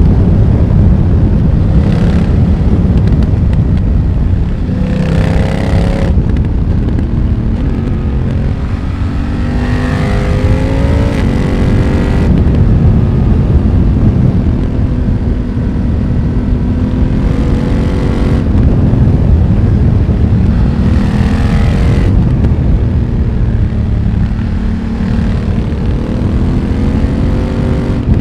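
2020 BMW F900R's parallel-twin engine through a Mivv X1-M aftermarket exhaust, under way: a steady engine note with four pulls where the pitch rises as it accelerates, each cut off sharply.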